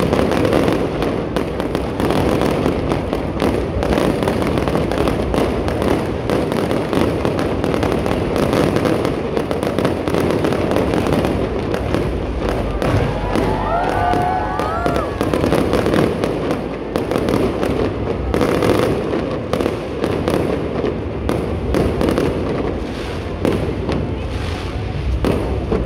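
Fireworks display: a dense, unbroken barrage of bangs and crackling from aerial shells.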